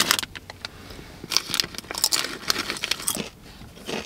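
Snack chip bag crinkling and rustling in short, irregular bursts as hands reach in and pull out tortilla chips.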